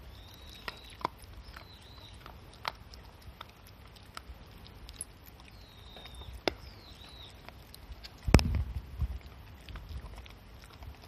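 Shiba Inu chewing and gnawing a treat, with scattered small clicks and crunches of teeth. A heavier bump comes about eight seconds in.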